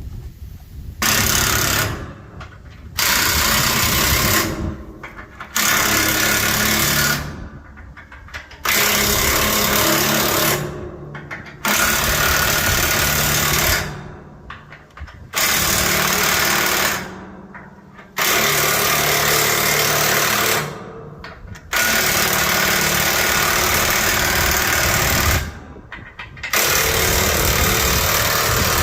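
Electric impact wrench hammering on bolts in about nine bursts of one to three seconds each, with a second or so of pause between them.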